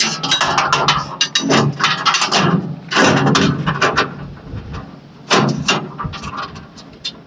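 Repeated sharp metallic clanks, knocks and rattles of a bandsaw blade being handled and fitted onto a band sawmill's wheels and guides.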